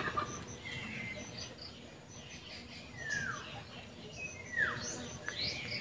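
Birds calling: a downward-sliding call heard twice, about a second and a half apart, among short high chirps, over a steady high insect drone.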